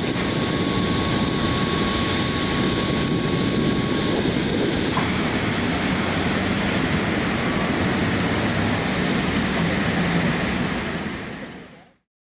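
Steady, loud jet aircraft noise on an airport apron, with a faint thin high tone over the first few seconds, fading out near the end.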